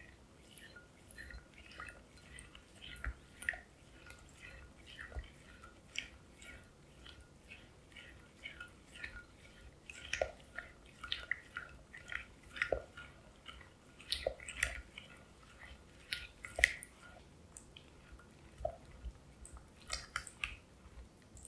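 Silicone spatula stirring raw eggs into thick melted chocolate in a glass bowl: a steady run of wet, sticky squelches with louder pops every second or two.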